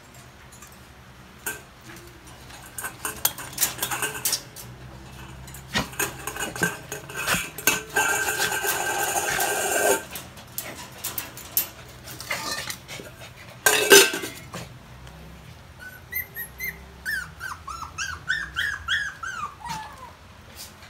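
Toy poodles in a wire cage: the metal cage and its plastic slatted floor rattle and clatter with many sharp knocks and a scraping stretch, with one loud knock about two-thirds of the way in. Near the end a dog whimpers in a quick run of short, high, squeaky cries.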